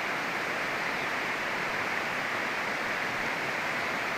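Steady, even rush of a fast, bouldery river's water.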